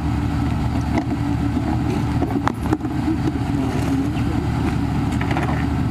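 Motorcycle engine idling steadily with a low, even rumble, with a few faint clicks over it.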